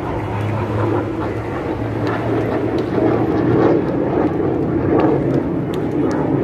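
Fixed-wing aircraft flying overhead: a steady engine rumble with a low hum underneath, growing a little louder about three seconds in.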